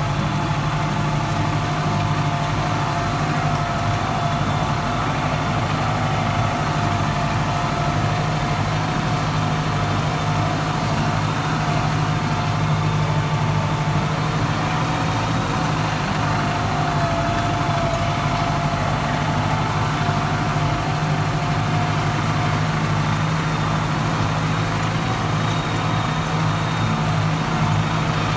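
Case IH JX100 tractor's diesel engine running at a steady, even speed while it drives along spraying, heard from inside the cab.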